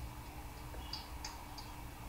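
Faint steady low hum of background noise, with three faint short high-pitched ticks about a second in.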